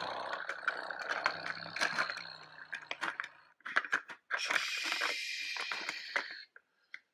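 A small toy construction vehicle pushed by hand across a plastic playset: rattling wheels and quick clicks and knocks of plastic on plastic, in two stretches with a short pause between them.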